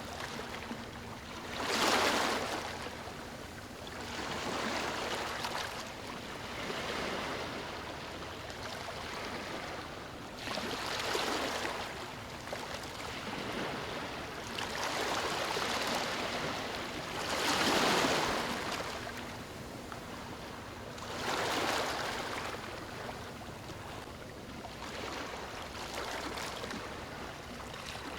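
Ocean surf: waves breaking on the shore every few seconds over a constant wash of water, each surge swelling and fading away.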